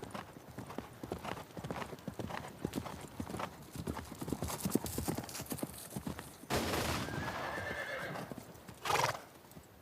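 Horses' hooves clopping in a run of sharp knocks, joined about six and a half seconds in by a louder rushing sound lasting nearly two seconds, and a short loud burst near the end.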